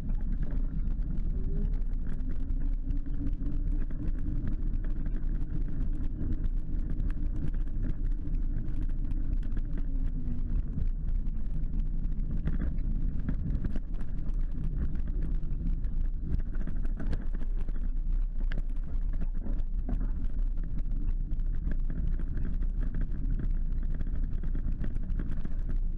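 An 8 mph electric mobility scooter driving over tarmac, heard from on board. Its motor and drivetrain give a steady low hum with a faint whine, over tyre noise and constant small rattles from the body.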